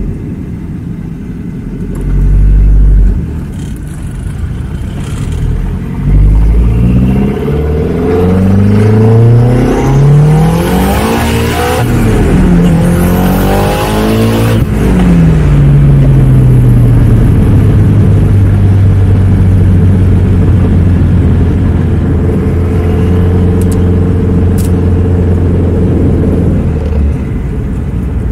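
Volvo 940 wagon's turbocharged four-cylinder accelerating hard, its revs climbing through the gears with a gear change in the middle, then settling into a steady cruise about halfway through.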